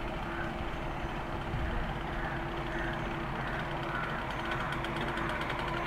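Kinetic Honda scooter's small two-stroke petrol engine driving a homemade boat, running steadily; a fast buzzing rattle comes in over the drone about four and a half seconds in.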